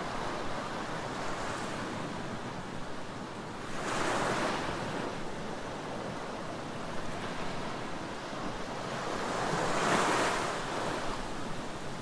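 Small waves washing up a sandy beach in a steady wash, with two louder surges as waves break, about four seconds in and again about ten seconds in.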